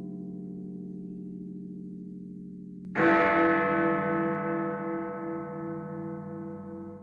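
A deep bell struck once about three seconds in. It rings with many tones and slowly dies away with a pulsing, wavering hum, over the fading ring of an earlier stroke.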